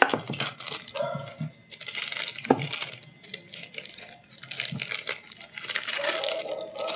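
Small six-sided dice clicking and a thin plastic bag crinkling as they are handled, with irregular clicks and rustles throughout.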